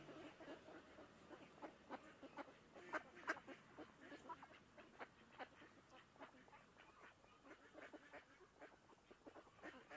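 Ducks quacking faintly on and off: many short calls scattered through, the loudest a little after three seconds in.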